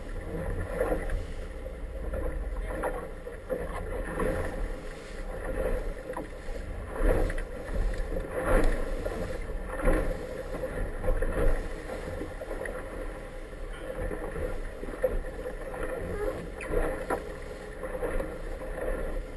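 Inflatable boat under way through a light chop: water rushing and slapping against the hull and wind on the microphone over a steady low engine drone. The slaps come irregularly, with several louder ones in the middle of the stretch.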